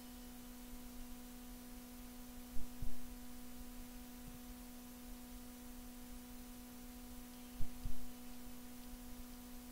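Steady electrical hum with fainter higher tones over a light hiss, broken by two pairs of dull low thumps about five seconds apart.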